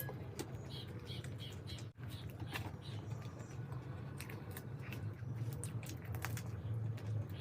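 Close-miked chewing and mouth sounds of a person eating, with many small sharp clicks over a steady low hum.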